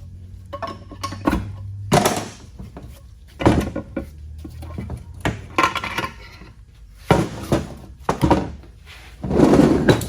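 Metal parts of a Dodge 273D transfer case clunking and clattering as they are pulled off and set down during teardown: about six separate knocks, the longest and loudest rattle near the end.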